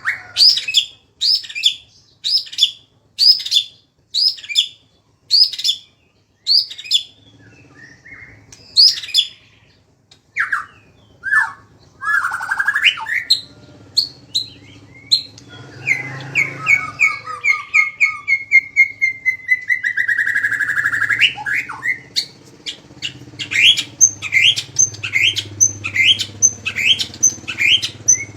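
A songbird singing a sharp-noted tutor song. It starts with a run of loud, sharp, repeated notes about one a second, moves into varied phrases and a long falling whistled note, then speeds up into quick repeated chirps about two a second near the end.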